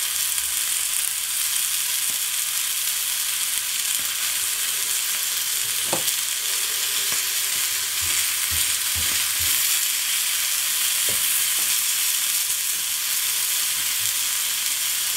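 Burger patty frying in a hot pan, a steady sizzling hiss, with a few light knocks in the second half.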